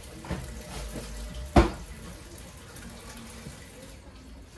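Water running from a kitchen tap, with one sharp knock about a second and a half in and a lighter click near the start.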